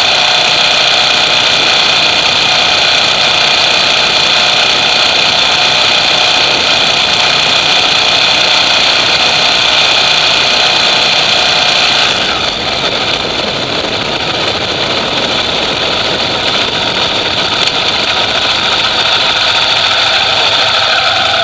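Ducati Monster EVO's L-twin engine idling steadily through its stock exhaust, with the level dropping slightly about halfway through.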